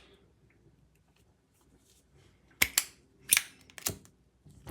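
Zippo lighter being worked: five sharp metallic clicks and clinks from the lid and flint wheel, starting about two and a half seconds in, as the freshly trimmed wick is lit.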